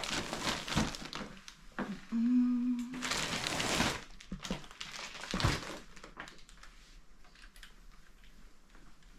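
Rustling and handling noises as fibre and tools are picked up and moved. A brief hummed note comes about two seconds in, and a low thump a little after five seconds.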